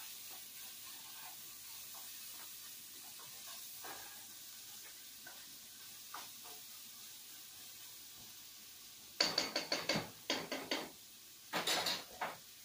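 Cooking spoon stirring and scraping in pots on the stove, faint at first, then a run of loud clattering knocks and scrapes of utensils and cookware about nine seconds in and again near the end.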